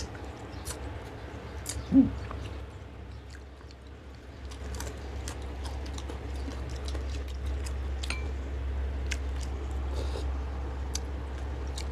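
Close-miked chewing, many small wet mouth and lip clicks from people eating rice and food by hand. A short hummed voice sound about two seconds in is the loudest moment, over a steady low hum.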